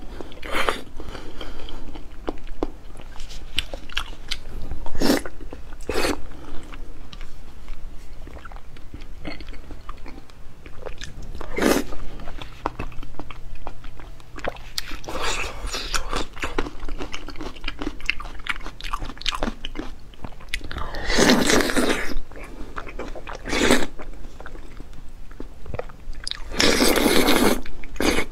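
Close, wet mouth sounds of a person biting and chewing soft braised pork belly in chili oil, with many short sharp smacks and clicks. Twice in the last third come longer, louder stretches of noise.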